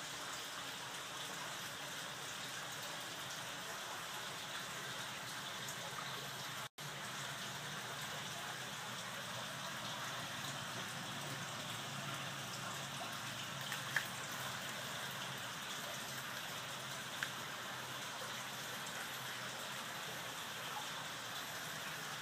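Aerated water in a koi tub fizzing and pattering steadily as air bubbles break at the surface, with a couple of faint ticks.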